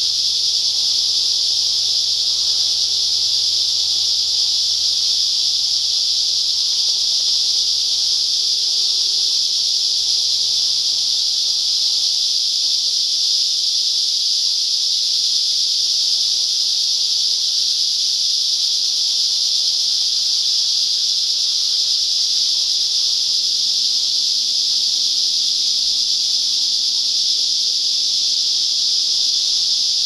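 Cicadas in the trees singing in chorus, a loud, steady, high-pitched buzz without a break. It is made by males rapidly vibrating their drumlike tymbals to call females to mate.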